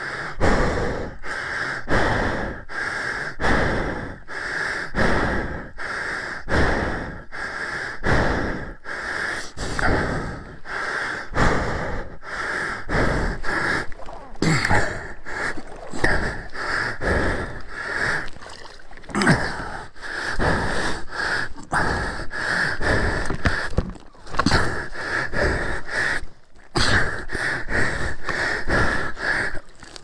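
A man panting hard, loud rapid breaths a little more than one a second, out of breath from heavy physical exertion.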